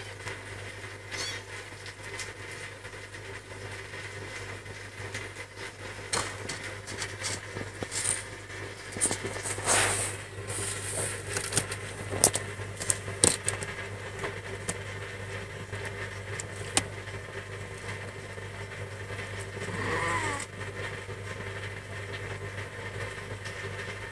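Mother cat purring steadily while nursing her kittens, with the kittens scuffling and scratching against her, in a cluster of clicks and scrapes around the middle. One short mew about twenty seconds in.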